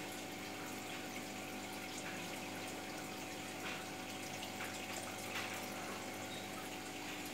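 Aquarium filter pump running with a steady hum, water trickling and splashing, and a few faint splashes or drips.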